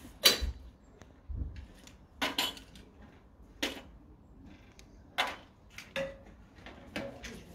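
Dishes and cutlery being handled, giving a handful of separate sharp clinks and knocks a second or so apart, one of them ringing briefly.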